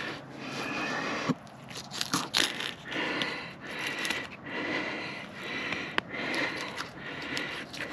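A hunting knife cutting through the hip joint to take a hindquarter off a wild boar carcass, with scattered scrapes and crackles from the blade and the leaf litter. Close breathing and sniffing rise and fall over it in roughly one-second breaths.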